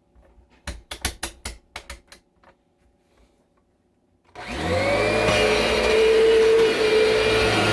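A quick series of sharp clicks and knocks, then about four seconds in a Kirby Generation 5 upright vacuum's motor switches on, whines up to speed and runs steadily with a strong hum.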